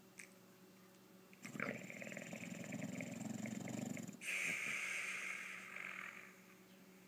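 English bulldog snoring in its sleep. About a second and a half in, a long rattling snore starts. It is followed by a breathier, hissing breath that fades out a little after six seconds.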